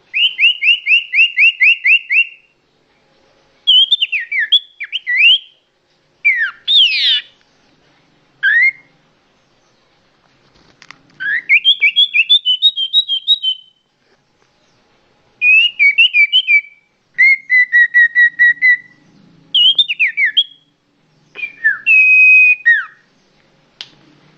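Common iora (cipoh) calls from a bird-lure recording: about ten loud whistled phrases separated by short pauses. They mix fast trills of repeated notes, sharp notes that slide steeply down in pitch, and a run of notes that climbs in pitch.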